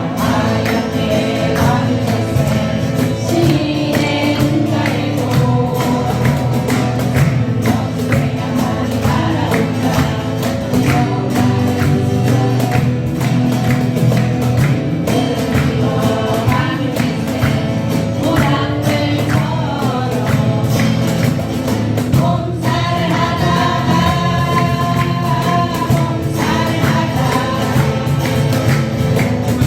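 Several voices singing a song together to strummed acoustic guitars.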